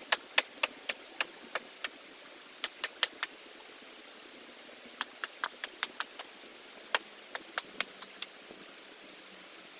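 Runs of sharp, dry clicks, about three a second, in several bursts with short pauses between them and none near the end.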